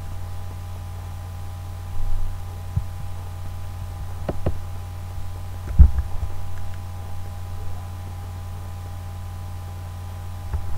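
Steady low electrical hum with a few faint steady tones above it, broken by scattered short clicks and thumps; the loudest thump comes about six seconds in.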